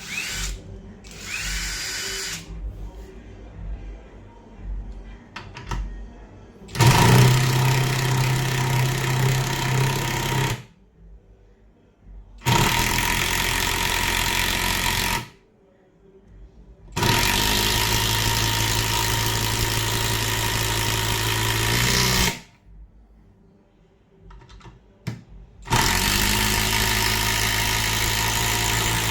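A 120 N·m cordless impact driver run four times in bursts of a few seconds each, each run starting with a quick rise in pitch, with short pauses between runs.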